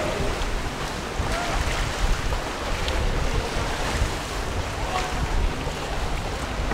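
Choppy sea water sloshing and lapping around an inflatable kayak, with wind gusting on the microphone as an uneven low rumble.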